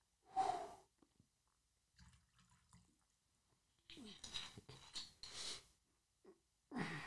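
Faint handling of a small glass liquor flask and its screw cap: a cluster of short scraping and clicking sounds about four to five and a half seconds in. A brief vocal sound comes about half a second in.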